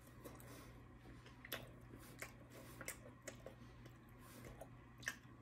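Faint chewing of pepperoni pizza, with scattered soft mouth clicks and smacks over a low room hum.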